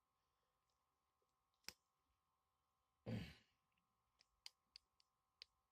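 Small plastic clicks as a Xiaomi Mi Band HRX fitness band's strap is fastened around a wrist: one click about a second and a half in, then a quick run of four or five clicks near the end. A short breathy sigh comes a little past halfway.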